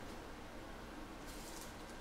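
Quiet room tone: a steady low hum and faint hiss, with light faint rustling from about halfway through.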